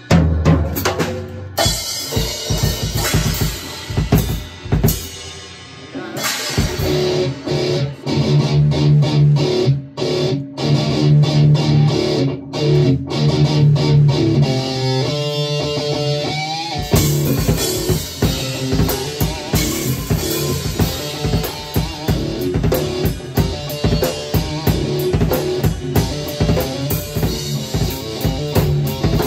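Drum kit and electric guitar playing together in a loose jam. The drums start alone, the guitar comes in with held notes about six seconds in, and from about seventeen seconds the drums settle into a steady groove under the guitar.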